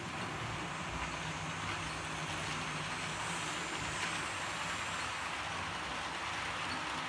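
Model steam locomotive and its coaches running along the track: a steady whirr and rolling rattle of motor and wheels on rails, growing a little louder as the train comes nearer.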